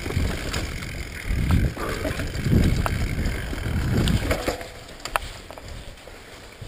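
Mountain bike riding down a rough dirt singletrack: wind rumbles on the microphone in gusts for the first four seconds or so, then it goes quieter, with sharp clicks and rattles from the bike over the trail.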